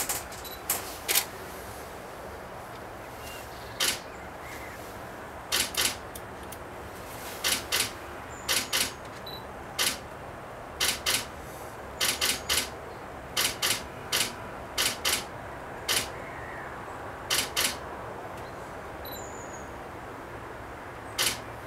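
Camera shutters firing: about twenty sharp clicks, irregularly spaced, many in quick pairs, over a steady low background hiss with a few faint high bird chirps.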